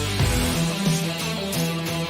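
Background music: a band track led by guitar over a steady bass line.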